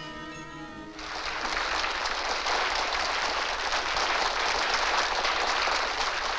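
A crowd clapping, starting about a second in after a short stretch of music with held notes.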